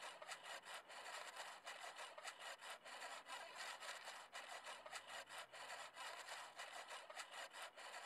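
Sound effect of the tightening knob on a Thule Edge Clamp roof-rack foot being turned: a steady, fast run of small clicks and rasps, like a ratchet being wound.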